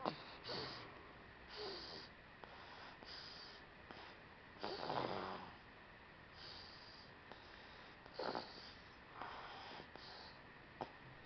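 Snoring of a sleeping two-month-old: a run of soft, noisy breaths about every second or two, the loudest about five seconds in.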